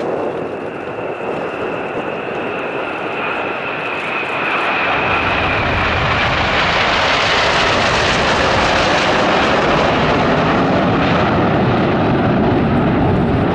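Jet engines of an Airbus A320neo airliner and a formation of BAE Hawk jets flying past together. A high whine sinks slightly in pitch at first, then a loud jet roar builds from about five seconds in as the formation passes.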